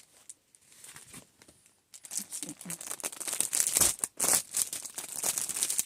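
Packaging crinkling and rustling as clothes are taken out of it: faint for the first two seconds, then louder, dense and continuous with sharper crackles.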